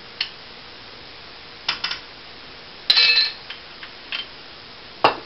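Kitchenware being handled at the stove: a series of short clinks and knocks, the loudest a ringing metallic clink about three seconds in and a sharp knock near the end.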